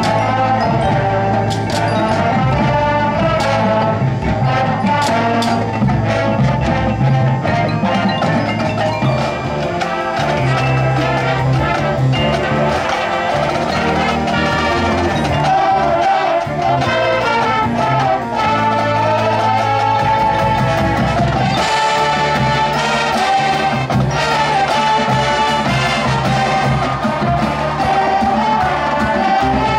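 Marching band playing its field show: brass and saxophones hold chords over a bass line, with marimba and other mallet percussion from the front ensemble. Sharp percussion strikes cut through in the first several seconds.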